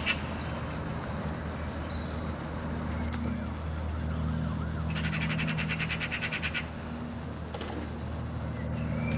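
A Eurasian magpie's harsh rattling chatter, a rapid run of about a dozen notes a second lasting about a second and a half, about five seconds in. This chatter is the alarm call magpies give when mobbing a cat. Faint short chirps near the start, over a steady low hum.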